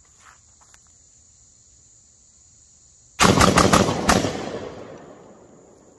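GForce Arms GF99 12-gauge semi-automatic shotgun fired rapidly, about five shots in about a second starting about three seconds in, with the reports echoing away afterward. The action cycles on every shot.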